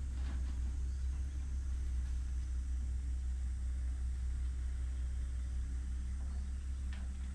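Excavator engine running steadily as a low rumble during debris clearing, with a faint knock near the start and another near the end.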